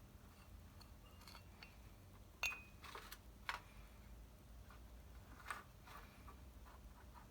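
Scattered small metal clicks and clinks of distributor parts being handled and fitted by hand; the loudest, about two and a half seconds in, rings briefly.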